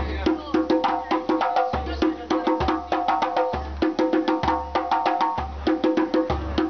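Music with a steady beat: quick, sharp clicking percussion over sustained melody notes and a repeating deep bass pulse.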